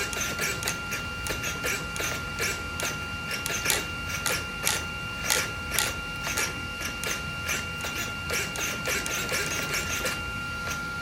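Promodeler high-torque steering servo on a Traxxas X-Maxx RC truck sweeping the front wheels rapidly back and forth, giving many quick, irregular whirring bursts as the tires scrub on the table. A steady high-pitched hum runs underneath.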